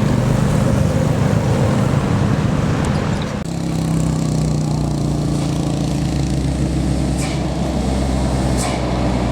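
Heavy diesel engine of a tour bus running under load as it climbs the hill. About three seconds in, the hiss drops away and a steadier low engine note takes over, and two short hisses come near the end.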